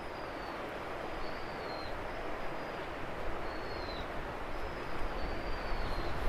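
A bird gives a series of thin, high whistled calls, about six, each under a second and some dropping in pitch at the end. They sit over a steady outdoor rushing hiss of wind and surf.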